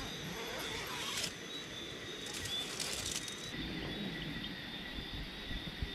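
Tent door zipper pulled shut in two strokes, about a second in and again from about two to three and a half seconds, over a steady high chorus of night creatures.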